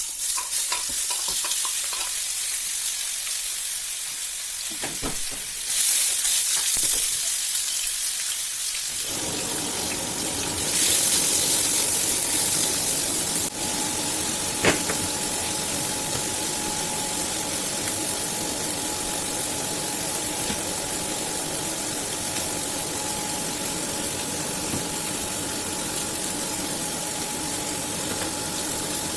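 Food frying in a pan, a dense steady sizzle with louder surges about six and eleven seconds in. A steady hum comes in about nine seconds in, with a single sharp click about halfway through.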